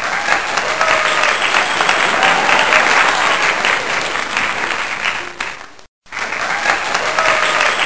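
A crowd applauding with some cheering voices mixed in. It breaks off abruptly just before six seconds and picks up again almost at once.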